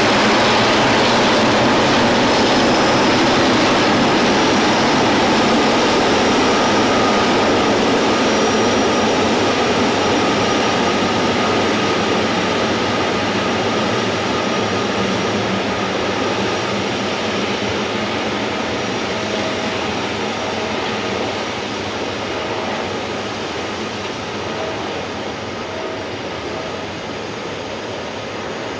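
Boeing 777-300ER's twin GE90 turbofan engines at taxi power as the airliner rolls along the runway: a steady jet rush with a faint whine, fading slowly as it moves away.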